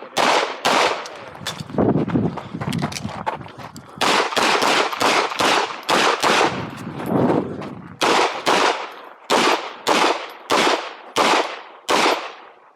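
Rapid 9mm pistol fire from a KMR Spectra during an IPSC stage: about twenty sharp shots, many in quick pairs, with a pause of about two seconds after the first few. Each shot echoes briefly.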